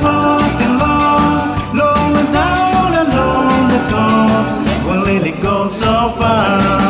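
Background music: an upbeat rock song with a steady beat and a voice singing.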